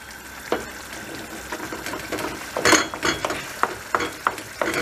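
Wooden spoon stirring a thick tomato-and-cheese menemen in a stainless steel frying pan, with several light knocks and scrapes of the spoon against the pan over a steady sizzle of the sauce on a freshly raised flame.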